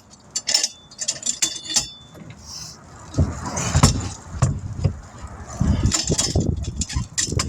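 Metal clinking and light clanks from tire-changing work, with a brief ringing tone, then heavier knocks and low rumbling from a few seconds in.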